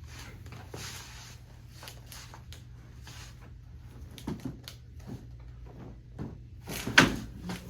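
Rustling and handling noises of a patient being positioned on a chiropractic treatment table, with a few soft knocks and one sharp, loud thump near the end.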